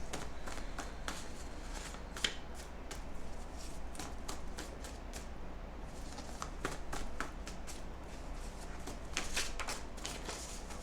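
Oracle cards being shuffled and handled: a run of soft, short clicks and flicks, thicker about nine seconds in.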